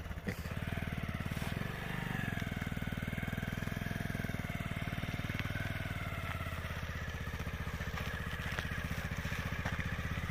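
Motorcycle engine running steadily at low revs, an even rapid putter, as the bike is ridden slowly over an icy road with the rider's feet down.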